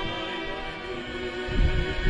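A slow, mournful sung hymn with orchestral accompaniment, sustained chords held between sung lines, with a deep bass swell near the end.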